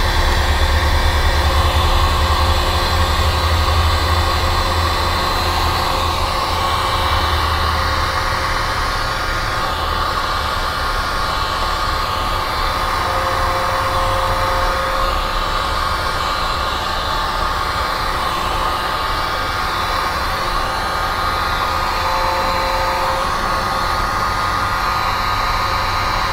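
Heat gun running, a steady rush of blowing air that carries on without a break.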